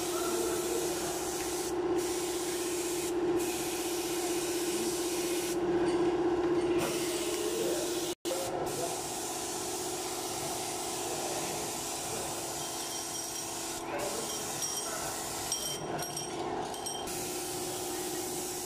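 Air-fed gravity-feed spray gun hissing steadily as it sprays enamel paint onto an iron window grille. The hiss stops briefly several times as the trigger is let off, over a steady hum. The sound cuts out for an instant about eight seconds in.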